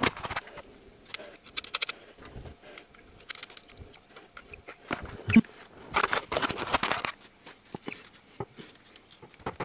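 Hands handling parts on top of a car engine: irregular clicks, taps and light rattles of small metal and plastic parts, with one louder knock a little past halfway and about a second of scraping and rubbing just after it.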